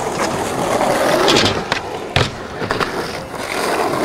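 Skateboard wheels rolling over asphalt in a continuous gritty rumble. Sharp clacks come about one and a half and two seconds in, the louder one a little past two seconds.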